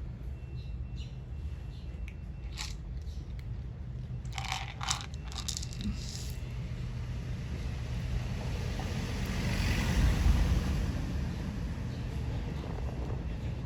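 Cats crunching and chewing food, with a cluster of sharper crunches about four to five seconds in. A low rumble swells and fades about ten seconds in.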